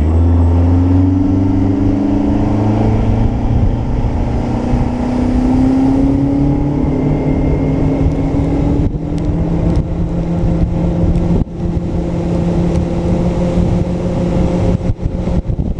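Boat outboard motor starting up and running, its pitch climbing over the first few seconds as the boat speeds up, then holding steady under way.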